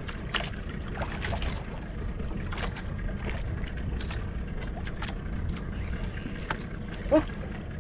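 Water lapping and slapping against the hull of a small outrigger boat over a steady low rumble of wind and sea, with scattered small knocks. There is one brief, louder sharp sound about seven seconds in.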